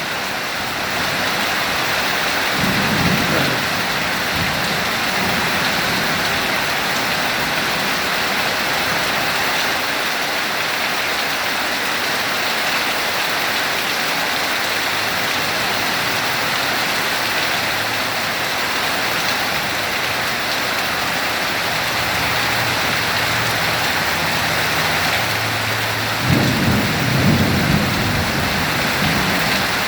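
Heavy rain falling steadily in a thunderstorm, with a short low thunder rumble about three seconds in and a longer rumble near the end.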